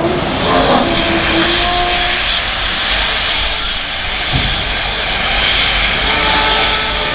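WP-class steam locomotive venting steam: a loud, steady hiss.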